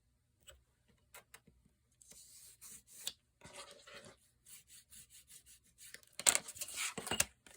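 Paper and card being handled and rubbed on a craft table: scattered light scrapes and taps, with a louder stretch of rubbing about six seconds in.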